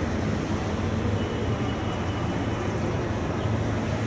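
Diesel locomotive engine running with a steady low rumble as the train approaches slowly along the track.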